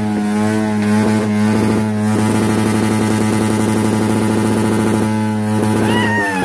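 Motorcycle engine revved and held at steady high revs, then the pitch drops as the throttle is let off near the end.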